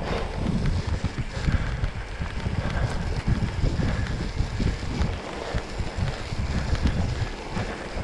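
Mountain bike rolling fast downhill on a dirt trail: wind buffeting the microphone over an uneven rumble and rattle of the tyres and bike on the ground.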